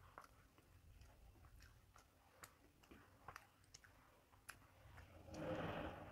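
Quiet eating by hand: faint chewing and scattered small clicks as fingers mix rice and fish on a steel plate. A louder, brief noise comes about five seconds in as a mouthful is raised to the lips.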